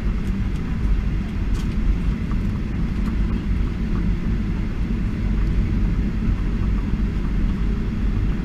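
Cabin noise of a Boeing 737-800 taxiing, heard from a seat over the wing: a steady low rumble of its CFM56-7B engines and the wheels rolling on the taxiway.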